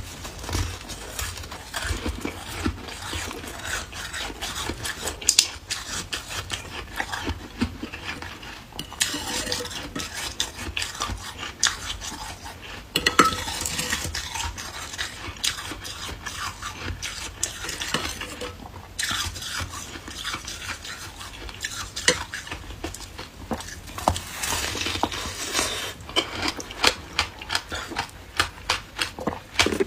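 Hard ice being bitten and chewed: a dense run of sharp cracks and crunches, with ice clinking and scraping against a container, broken by a few brief lulls.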